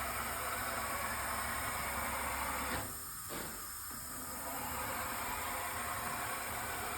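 Parlec CNC tool presetter's axis drive running with a low steady hum, stopping with a click about three seconds in, over a steady hiss of background noise.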